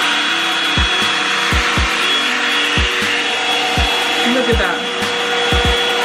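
Revlon One-Step hot air brush running steadily, a rush of blown air with a thin high motor whine. Deep thumps that drop in pitch come in several times over it.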